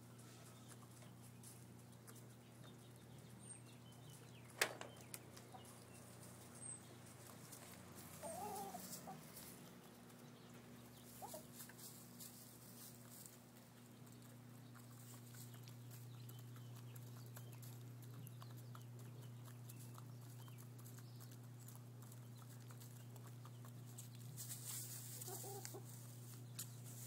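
Hens clucking now and then, short calls at intervals, as they peck at scratch in straw, with a sharp click about four and a half seconds in and scattered faint ticks.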